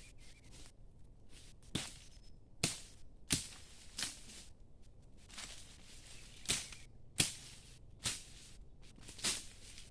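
Repeated chopping: a blade striking into wood or brush about nine times, in irregular sharp cracks.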